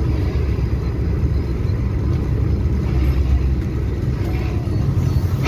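Mercedes-Benz 1620 truck's six-cylinder diesel engine and road noise, a steady low rumble heard inside the cab while driving.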